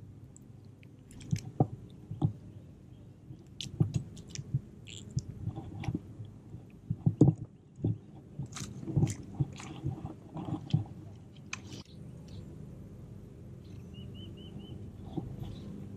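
Close, irregular handling noises on a body-worn camera: clicks, rubs and knocks as a small sunfish is unhooked and the fly rod and line are handled, settling down after about eleven seconds. Near the end comes a short run of high, quick chirps.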